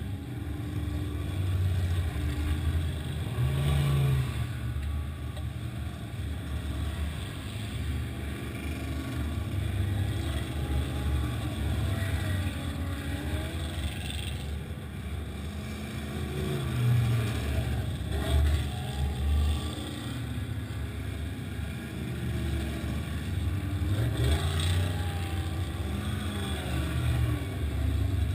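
Side-by-side UTV's engine running as it drives over sand, its pitch rising and falling with the throttle throughout.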